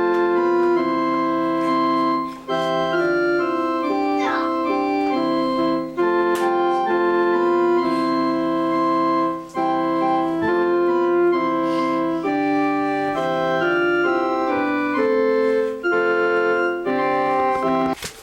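Electronic keyboard playing a melody over chords with held, organ-like notes, in phrases separated by short breaks; a brief rising squeak cuts across it about four seconds in, and the music stops abruptly near the end.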